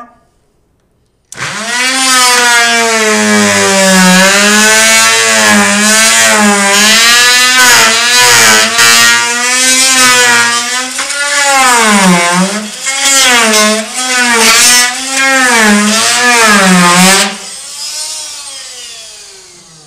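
Fein MultiMaster oscillating multi-tool plunge-cutting through a wooden door jamb with a very dull blade: a loud buzzing drone whose pitch wavers and dips repeatedly under load. It switches on about a second in, cuts off a few seconds before the end and dies away.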